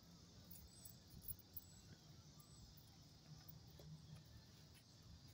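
Near silence: faint outdoor background noise, with a low hum and a few soft ticks.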